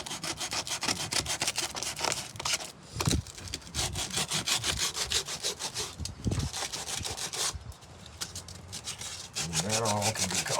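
Fast back-and-forth hand strokes of an abrasive rubbing over wood trim and Bondo filler, as in hand-sanding a repair. The strokes break off briefly about three seconds in and die away after about seven seconds.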